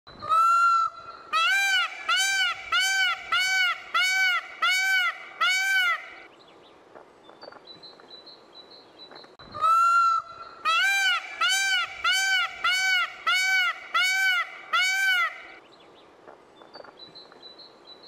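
Peacock (Indian peafowl) calling: one longer call followed by seven short calls in quick succession, each rising and falling in pitch. The whole series comes twice, the second starting about ten seconds in.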